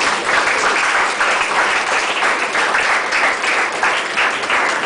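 Audience applauding, starting all at once and keeping up steadily.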